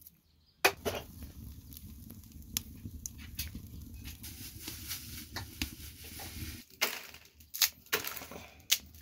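Wood fire burning in a clay oven, a steady low rumble with scattered crackles. Near the end come several sharp snaps as dry spaghetti is broken by hand.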